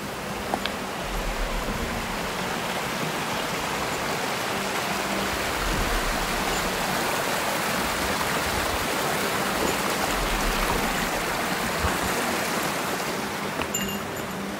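Shallow mountain stream rushing steadily over stones.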